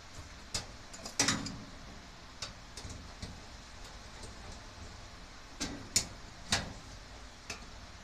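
Irregular metal clicks and clunks of tools and hands working on garage door hardware (track, bracket and fittings), with a cluster of knocks a little over a second in and two sharp knocks near the end.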